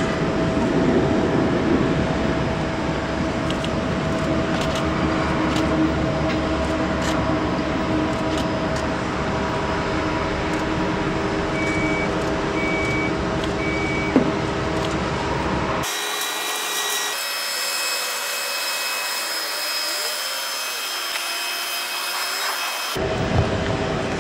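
Steady airport apron noise: the hum and whine of aircraft and ground vehicles, with three short beeps about halfway through and a sharp click just after them. For several seconds near the end the low rumble drops out, leaving only thin, high steady whining tones, before the full noise comes back.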